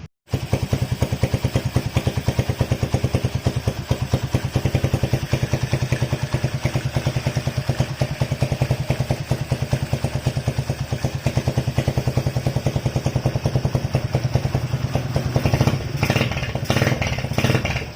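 Single-cylinder motorcycle engine idling through a stock Honda GL muffler converted into a 'kleper' exhaust, giving a fast, even popping beat. There are a few louder pulses near the end.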